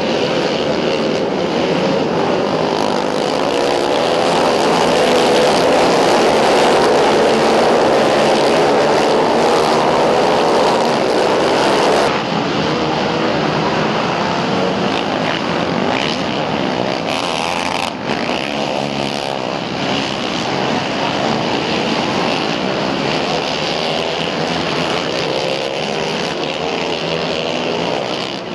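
A pack of racing quad (ATV) engines running hard together on a dirt flat track, with many engine notes rising and falling at once as the riders rev and back off. It is loudest in the first half, and the sound changes abruptly about twelve seconds in.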